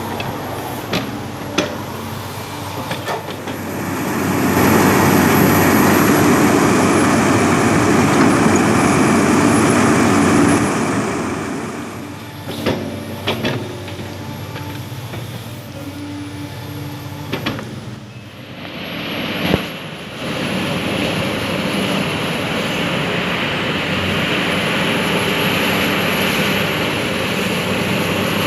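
Sumitomo SH350 excavator's diesel engine and hydraulics running, rising to a louder spell under load for several seconds, then settling and rising again, with a few short metallic knocks.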